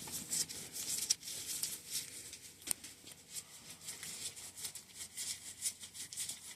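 Faint, scattered light clicks and rustles of a bicycle hydraulic brake lever and its small metal parts being handled, with one sharper click about two and a half seconds in.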